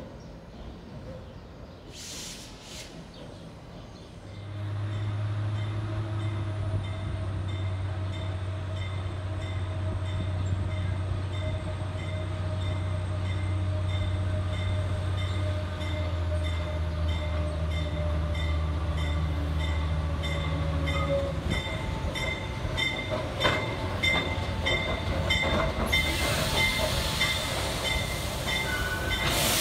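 Diesel work locomotive running with a steady low drone as it hauls a train of subway cars, setting in about four seconds in. Later the wheels clatter over the rail joints as the cars pass.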